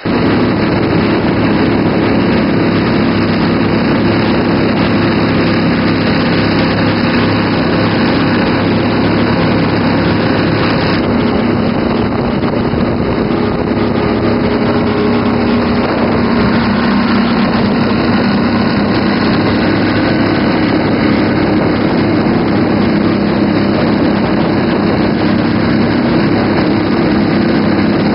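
Mud motor on a small duck boat running steadily at speed, heard from aboard close to the engine, its pitch shifting a little about eleven and sixteen seconds in.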